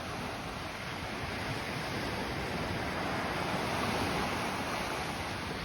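Sea waves washing onto the shore as a steady wash, swelling a little about three to four seconds in.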